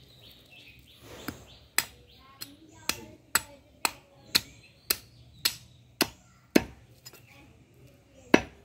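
A heavy butcher's cleaver chopping through mutton ribs on a wooden log block: a string of sharp chops about two a second, then a pause near the end before one last chop.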